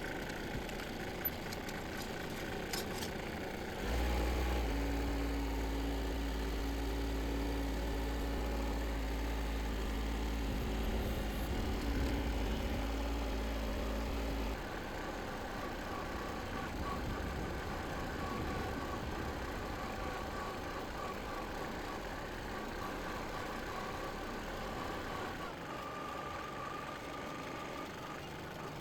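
Harbor Freight backhoe trencher's small engine running steadily. About four seconds in it turns louder and deeper for roughly ten seconds, then drops back to its lighter running note.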